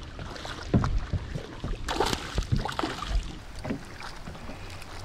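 Water splashing and sloshing at the side of a boat as a small hooked snook is reeled in, with irregular sharp splashes and knocks.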